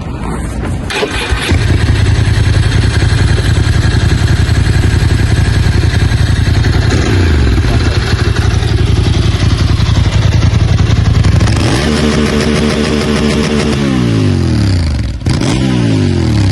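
Ducati motorcycle engine fitted with aftermarket cams and headers, idling with a loud, steady low rumble. Later it is blipped several times, the revs falling back each time.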